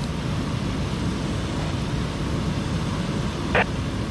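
Steady low rumble of idling emergency vehicles, a fire engine and an ambulance, with one brief sharp sound about three and a half seconds in.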